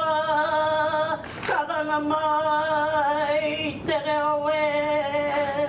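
Unaccompanied singing: voices holding long, slightly wavering notes in phrases, broken twice by short pauses.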